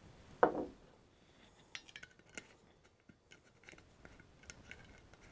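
Light clicks and small clinks of glassware being handled on a kitchen counter, with one short, louder knock about half a second in.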